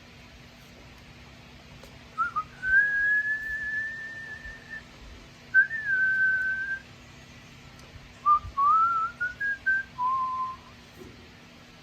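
A woman whistling a tune through her lips: a long, high held note, a second shorter note, then a run of short wavering notes that slide up and down.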